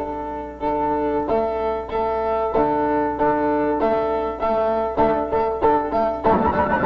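Instrumental soundtrack music: a dance tune of held chords that change about every two-thirds of a second, turning fuller and busier near the end.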